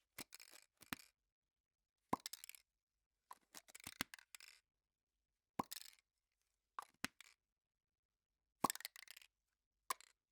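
Aerosol spray paint can shaken in short bursts, the mixing ball clacking against the inside of the metal can. About seven brief clusters of sharp rattles come with short pauses between them.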